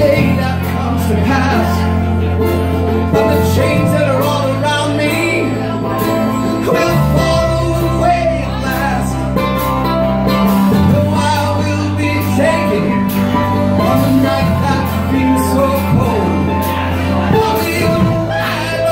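A live band playing: acoustic guitar, electric bass and keyboard, with a harmonica, the bass holding long notes that change every few seconds.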